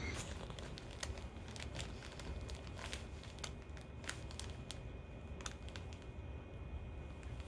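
Crinkling and rustling on a chiropractic table as the patient settles onto her back and shifts about, with scattered small irregular crackles.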